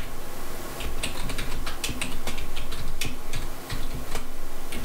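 Typing on a computer keyboard: a quick, irregular run of separate key clicks, over a steady low hum.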